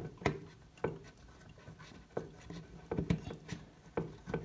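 A string of irregular light clicks and taps, with some rubbing, from a hand working the coupling nut of the toilet's water supply line under the tank.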